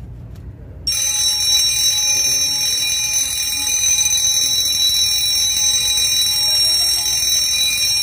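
Fire alarm bell of a ZETA conventional fire alarm system ringing continuously, starting suddenly about a second in: the alarm set off by pressing a break glass call point to test that it works.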